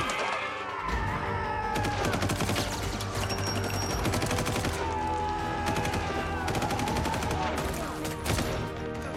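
Automatic rifle firing in long rapid bursts, over a film score.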